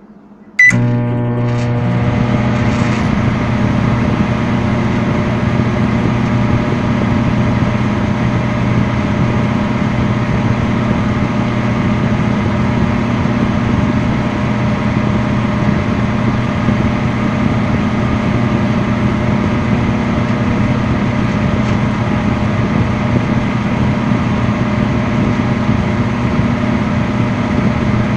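Microwave oven switching on with a sudden click about half a second in, then running with a steady, loud hum and whir.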